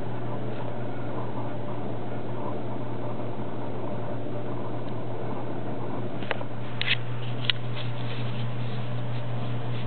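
A steady, even low hum, with a few brief clicks about six to seven and a half seconds in.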